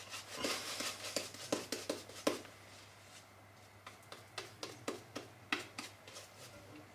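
Three-band badger shaving brush working soap lather over the face: a run of short, irregular wet brush strokes, quick and busy over the first two seconds, then fewer and more spaced out.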